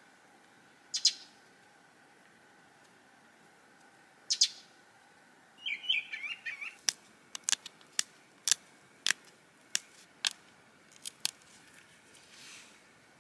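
Two short chirps and a brief warbling bird call, then a run of sharp clicks about two a second as an antler pressure flaker snaps small flakes off a stone drill bit.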